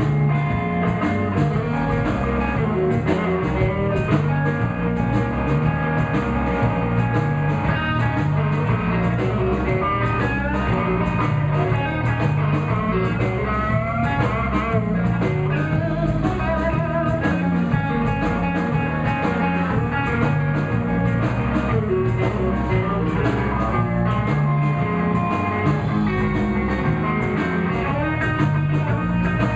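Blues band playing an instrumental passage between sung verses: guitar over a repeating bass line and a steady beat.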